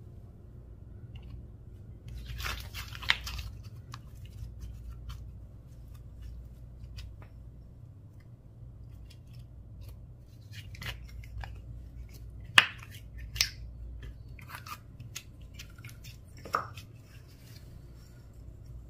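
Slime mixed with mini balls being pressed and stretched by hand, giving scattered soft crackles and sticky pops, with a few sharper clicks in the second half.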